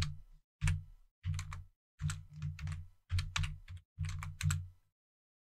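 Computer keyboard keystrokes: about six short clusters of quick clicks, stopping shortly before the end.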